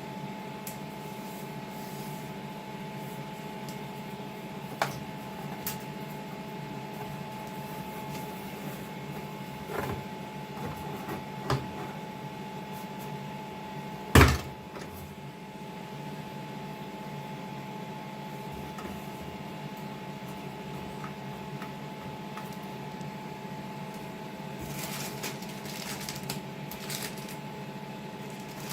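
Washing machine humming steadily, with a few scattered knocks and clicks; the loudest is a single sharp thump about halfway through, and there is some rustling near the end.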